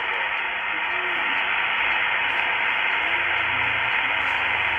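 Super Star 2000 CB radio receiving on channel 27: a steady hiss of static, with faint, garbled voices under it.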